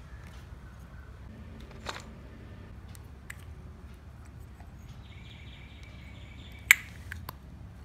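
Steady background noise with a few sharp clicks, the loudest about two-thirds of the way in, just after a high, steady chirp that lasts about a second and a half.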